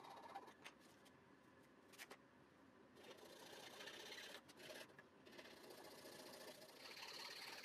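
Faint rasping of a small hand file worked back and forth in a small wooden piece, shaping a drilled-out recess into a rectangular opening for a rocker switch, in stretches of strokes with a couple of light clicks.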